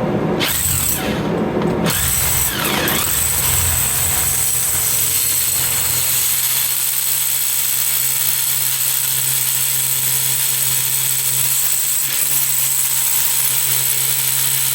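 Hammer drill boring a hole into stone, running steadily under load.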